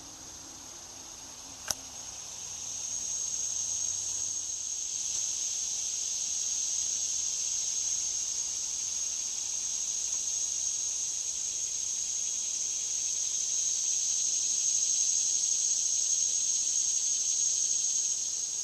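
High, steady insect drone from the trees, swelling in a few seconds in and then holding level. A single sharp click sounds just before it swells.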